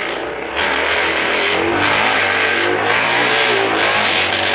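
Noisemaker fitted to a bicycle, making a steady loud noise as the bike is ridden; it sets in about half a second in.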